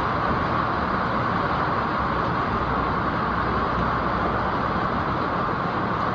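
Steady road and wind noise of a moving vehicle, an even rushing hiss with a low rumble underneath that holds level throughout.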